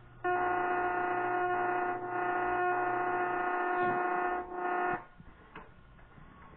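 Moaning sound from a VHS tape's playback: a loud, steady drone with overtones over tape static, starting abruptly and cutting off after about four and a half seconds.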